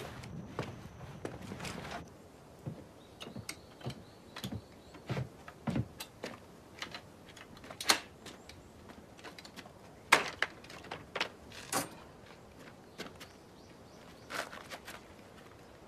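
Irregular knocks and clacks, hard wood or metal being struck or set down. The sharpest come about eight, ten and twelve seconds in.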